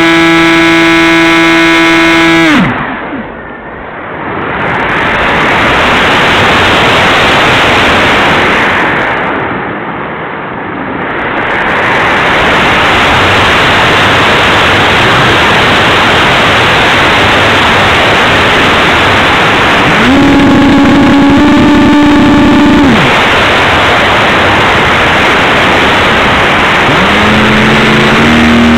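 Onboard sound of a Stryker F27C electric RC flying wing: its brushless motor whine cuts off about two and a half seconds in, leaving loud rushing airflow over the mic as the plane glides. The motor comes back for about three seconds later on, then starts to spool up again near the end.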